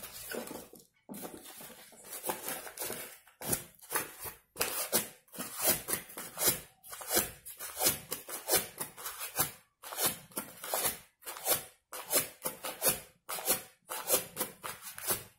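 Dry, green-painted corn husks rustling and crackling in repeated short, uneven bursts as they are handled and rolled up by hand.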